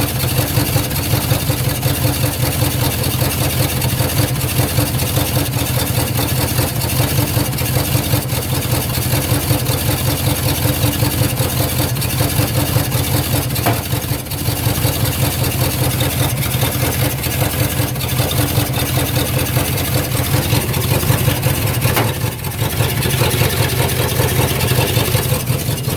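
1999 GMC Yukon's engine running steadily, with a single sharp pop a little past halfway through: the intermittent popping the owner is trying to trace.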